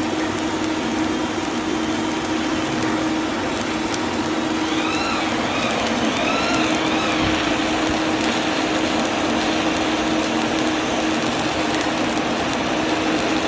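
Electric arc welding on the steel shell of a fire-tube boiler: the steady hiss and crackle of the welding arc, over a steady low hum. A few short rising-and-falling whistles sound about five seconds in.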